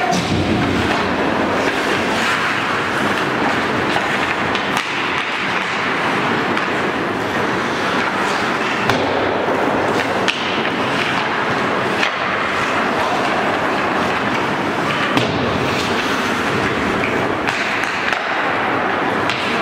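Ice hockey play: skate blades scraping the ice under a steady hiss, with sharp clacks of sticks and puck and the odd thud every few seconds.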